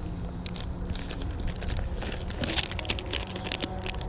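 Rummaging in the zippered pocket of a fabric tackle backpack: rustling, with clusters of short crackling clicks as a plastic soft-bait bag is handled.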